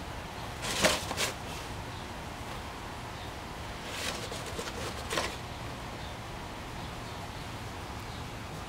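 A few short rustling scuffs: the loudest about a second in, two fainter ones at about four and five seconds, over a low steady hum.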